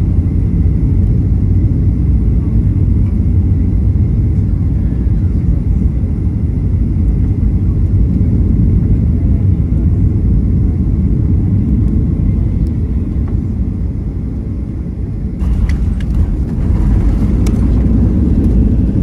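Cabin noise of a Boeing 737-800 on final approach, heard from a window seat over the wing: a steady, loud low rumble of jet engines and airflow. About three-quarters of the way through, touchdown on the runway brings a sudden, fuller rush of noise with rattles and knocks as the wheels roll and the spoilers deploy.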